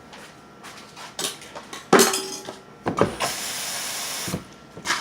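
Kitchen dishes knocking and clattering as a bowl is fetched, the loudest knock ringing briefly, followed by a steady hiss lasting a little over a second.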